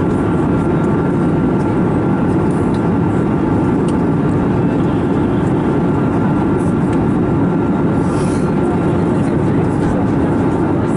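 Steady cabin noise of an Airbus A321neo in flight: a constant low rush of airflow and engine drone, with a faint steady whine above it.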